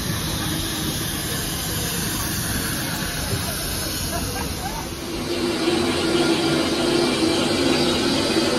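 Steam locomotive hissing steam at a standstill. About five seconds in, the sound changes to inside the locomotive's cab: a louder steady hiss with a low steady drone from the engine's fire and steam fittings.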